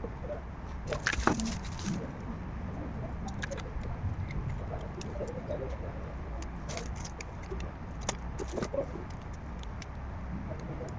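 Light clicks and small rattles, a cluster about a second in and more around seven and eight seconds in, over a low steady hum, with pigeons or doves cooing faintly in the background.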